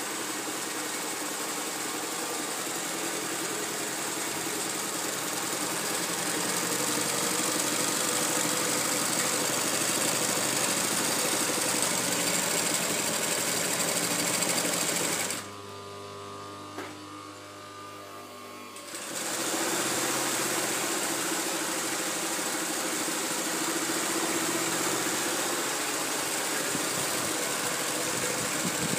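Three-head industrial hair-weft sewing machine with SunStar sewing heads running steadily as it stitches hair wefts. About halfway through it goes much quieter for about three seconds, then runs at full level again.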